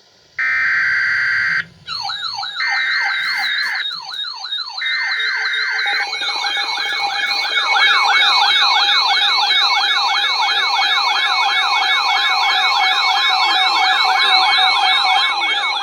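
Emergency alert radio alarm: three short bursts of buzzy alert-header data tones, and from about two seconds in a fast warbling siren alarm, about three sweeps a second, with a steady tone beneath it. The siren gets louder about six seconds in.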